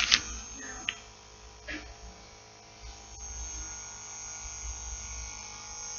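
Steady electrical mains hum, with a few brief handling clicks and rustles in the first two seconds, the first the loudest, as a soft-plastic crawfish lure is handled.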